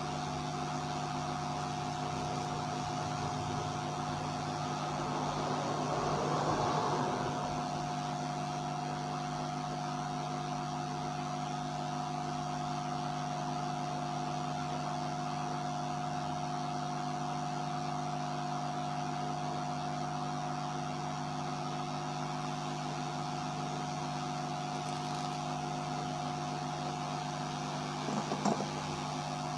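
A steady machine hum with a constant higher whine, swelling briefly into a louder hiss about six seconds in, with a few faint clicks near the end.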